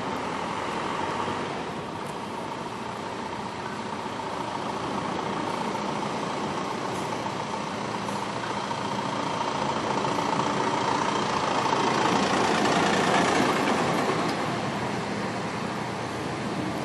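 Road traffic noise, a steady engine-and-tyre hum that slowly swells to a peak about twelve seconds in and then eases off, as of a vehicle passing.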